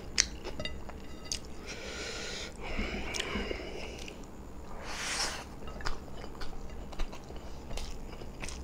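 Close-miked mouth sounds of chewing beef biryani, with scattered sharp clicks. Alongside come the sounds of fingers mixing and scooping rice on a glass plate.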